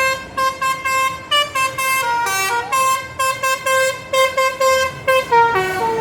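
Indonesian bus 'basuri' telolet horn playing a quick tune of short horn notes that step between a few pitches, ending in a falling run of notes.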